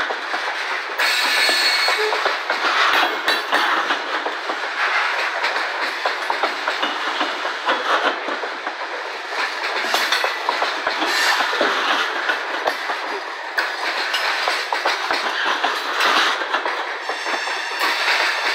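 Freight cars rolling past: steel wheels running over the rails with a steady rumble and continual clickety-clack of clicks and knocks as covered hopper cars and then tank cars go by.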